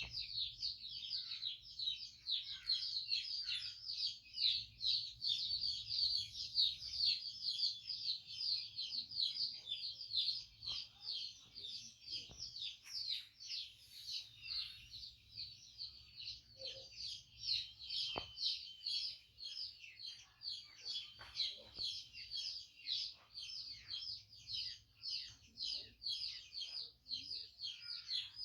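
Birds chirping steadily in a rapid, high-pitched run of about five chirps a second, with a single sharp click about two-thirds of the way through.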